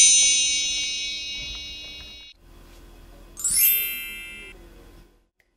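A chime glissando sound effect, rung twice: a shimmer of many high metallic tones sweeping from high to low, like a mark tree brushed along its bars. The first ring fades and is cut off about two seconds in; the second comes about a second later and dies away.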